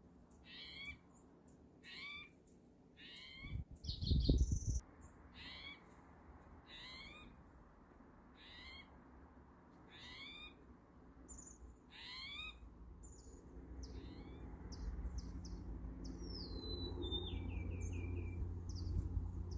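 A bird repeating the same short call roughly every second and a half, with other small birds chirping and a falling trill in the second half. There is a single thump about four seconds in, and a low rumble builds near the end.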